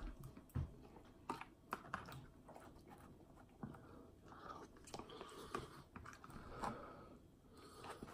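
A person chewing a mouthful of instant ramen noodles, faintly, with scattered light clicks of a metal fork against a plastic container.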